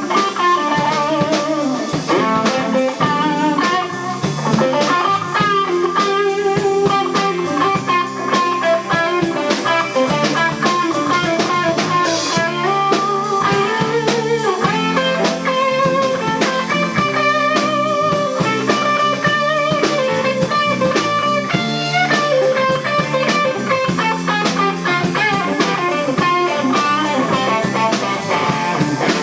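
Overdriven electric guitar solo over drums: a 1986 Gibson ES-335 through a Maxon OD9 overdrive, a Fulltone Deja Vibe and a delay into a 1974 Fender Deluxe Reverb amp, with wavering vibrato and bent notes.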